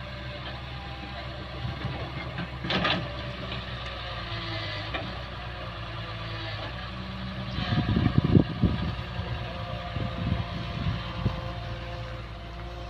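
Daewoo Solar 130W wheeled excavator's diesel engine running steadily as it works the bucket, digging earth from a pond bank. A brief clatter comes about three seconds in, and a cluster of heavy knocks and thuds, the loudest part, about eight seconds in.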